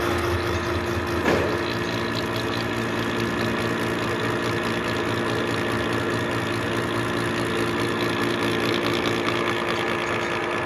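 Milling machine running steadily, its spur-gear cutter milling a tooth space in a duralumin gear blank held in the dividing head, with a brief louder moment about a second in.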